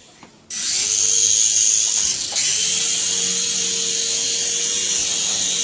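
Toy remote-control helicopter's small electric motor and rotor spinning up about half a second in, then whirring steadily with a high whine, dipping briefly about two seconds in.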